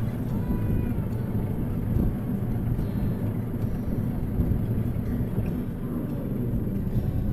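Mahindra 1526 tractor's diesel engine running steadily while it pulls and drives a rotary cutter (brush hog) through a field.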